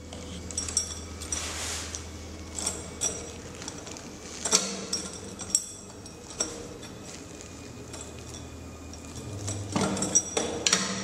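Scattered metal clinks and knocks as a collimator is fitted onto the mounting ring of an X-ray tube housing, with a brief rustle of its plastic wrapping near the start. A cluster of knocks comes near the end, over a steady low hum.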